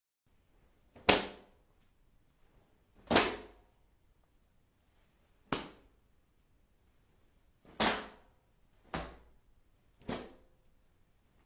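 Six separate body-hit impact sound effects, each a sharp blow with a short fading tail, spaced one to two and a half seconds apart; the first two hits are the loudest.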